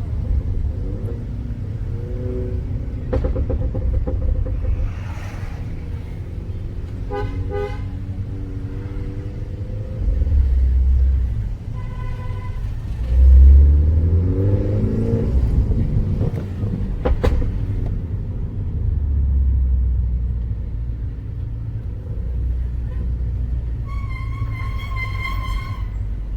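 Mini Cooper S engine running and revving in traffic, rising in pitch with each throttle pull, while vehicle horns honk several times, briefly at first and longest near the end. One sharp crack about two-thirds of the way through.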